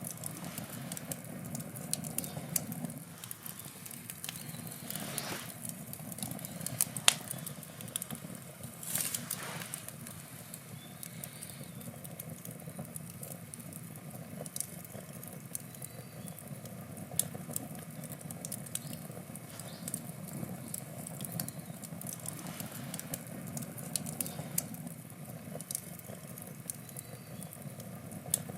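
Wood campfire burning: the steady low rush of the flames, with irregular crackles and snaps of the burning wood, one sharper pop about a quarter of the way in and a couple of short hisses.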